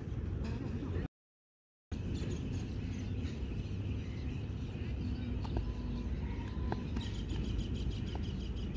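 Steady outdoor background noise, heaviest in the low end, with faint chirps and a few small ticks. About a second in it cuts out completely for under a second, a dropout in the recording.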